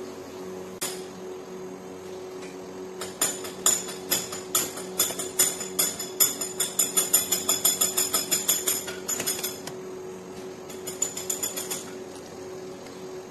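Rapid runs of light metallic clicks and knocks as the parts of a pallet mover's electric pump motor are fitted back together by hand: one click about a second in, then a long quick series of several clicks a second, and a shorter run near the end, over a steady low hum.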